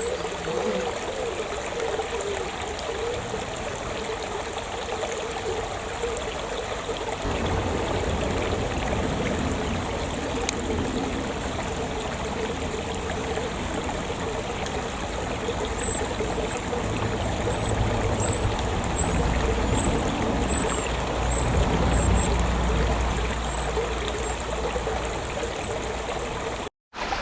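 Small stream trickling and babbling steadily. A low rumble comes in about seven seconds in, and a short run of faint high chirps sounds later on.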